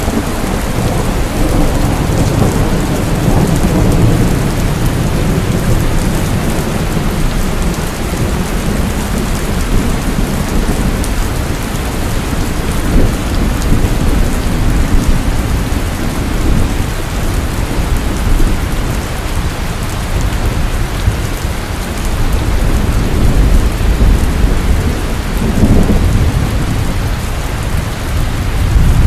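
Heavy rain pouring steadily, with low rolls of thunder rumbling in and out, strongest in the first few seconds and again near the end.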